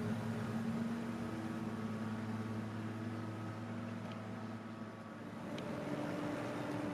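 Steady low mechanical hum made of several even tones, like a running engine or machine. Its pitch pattern changes about five seconds in. A few short high chirps sound over it.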